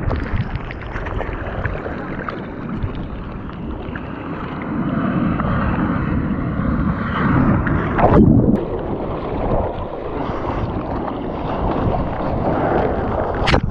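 Seawater sloshing and rushing around a bodyboard-mounted action camera, with wind buffeting the microphone. About eight seconds in there is a louder splash, and the sound goes briefly muffled just after it.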